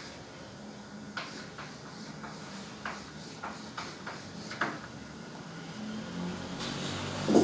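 Chalk tapping and scraping on a blackboard as rounded cell outlines are drawn: a string of short, irregularly spaced taps and scratches. A louder short sound comes near the end.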